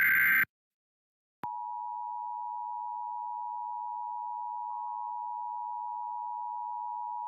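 The tail of an Emergency Alert System digital header burst, a harsh buzzing warble that cuts off just after the start. After about a second of silence comes a click and then the EAS attention signal, a steady two-pitch tone held unchanged.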